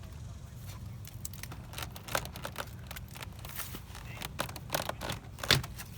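Scattered sharp clicks and light knocks, the loudest about five and a half seconds in, over a low steady hum.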